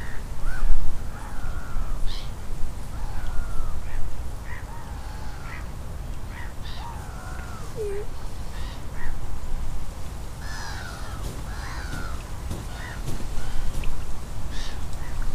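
Birds calling over and over with crow-like caws, short calls scattered throughout, over a steady low rumble. A bump just under a second in is the loudest moment.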